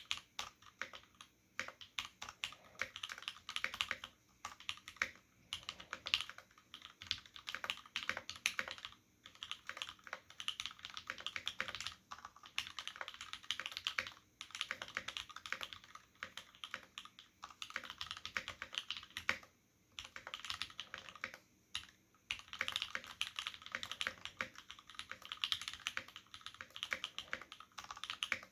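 Mechanical keyboard with lubed Cherry MX Black linear switches on an aluminium plate and original Cherry dye-sub keycaps, being typed on in continuous runs of keystrokes broken by short pauses. It has the clacky sound Cherry MX boards are known for.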